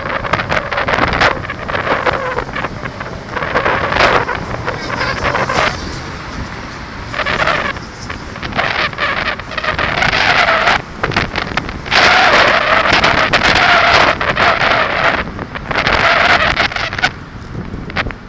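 Wind buffeting the microphone of a cyclist's camera while riding in city traffic, with cars passing.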